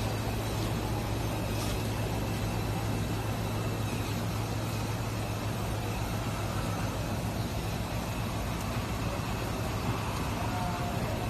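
Automatic cutting machine running: a steady mechanical drone with a strong low hum.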